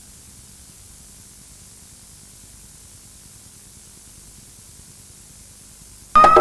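Steady hiss of broadcast static for about six seconds, then near the end a loud electronic sound effect cuts in suddenly: a high tone gliding slightly upward with sharp clicks.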